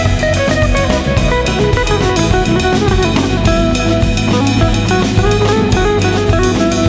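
Background music with guitar and a steady drum-kit beat.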